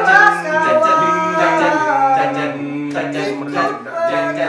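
A man singing a song in long held notes over instrumental accompaniment.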